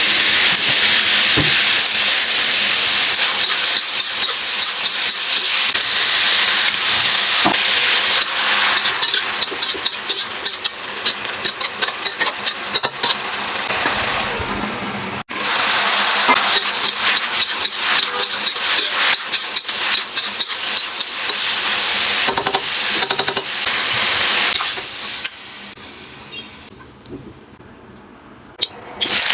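Food stir-frying in hot oil in a pan: a loud, steady sizzle with many quick crackles. The sizzle drops away sharply near the end.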